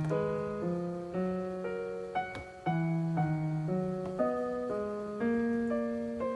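Background piano music: a calm melody of notes and chords struck about twice a second.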